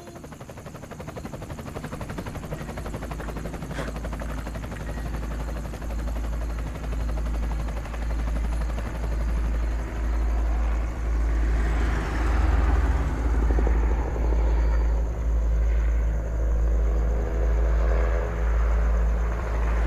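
Helicopter flying overhead: a low, pulsing rotor drone that grows louder over the first half and then holds steady.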